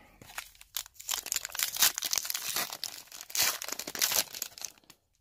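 Wrapper of an O-Pee-Chee Coast to Coast hockey card pack being crinkled and torn open: a run of crackling rustles that stops near the end.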